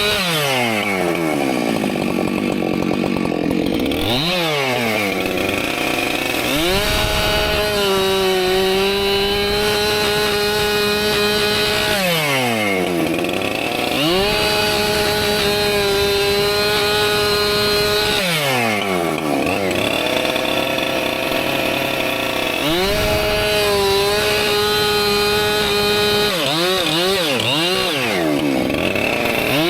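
Husqvarna two-stroke chainsaw bucking firewood. The engine is held at full throttle through each cut for several seconds, and its pitch falls off between cuts, about four times over. Near the end come a few quick throttle blips.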